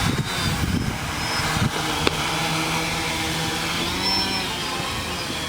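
Small electric drone motors spinning their propellers with a steady whirring hum and faint high whine, with a few sharp clicks or knocks in the first two seconds.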